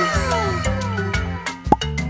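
Upbeat background music with a steady beat. Several falling pitch slides die away in the first part, and a short sharp note sounds near the end.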